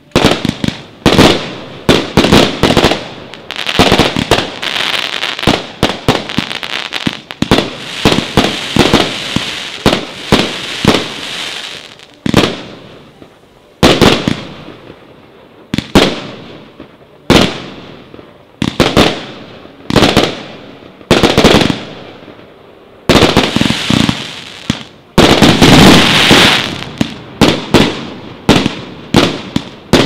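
Triplex TXB099 multi-shot fireworks cake (264 shots, 0.8–1.5 inch tubes) firing a rapid barrage: shots launching and bursting in quick succession. There are two short lulls, about 12 and 22 seconds in.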